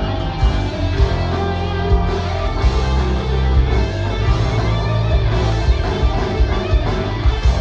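Rock band playing live, with electric guitar over bass and drums.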